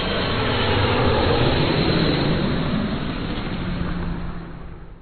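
Jet airliner passing overhead: a broad rush of engine noise that swells to a peak about a second and a half in, sinks in pitch as it passes, then fades out near the end.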